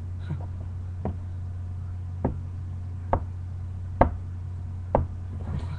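A run of six sharp knocks, roughly one a second, the loudest about four seconds in, over a steady low electrical hum.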